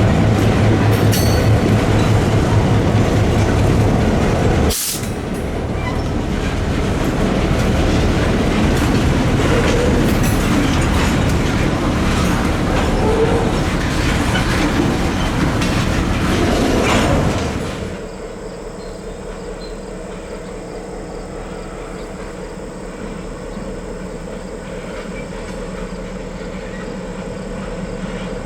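A short-line freight train passing. For the first few seconds the diesel locomotive's engine is loudest; then the freight cars roll by with repeated clicks of wheels over the rail joints. About 18 seconds in, the sound drops abruptly to a quieter, steady hum.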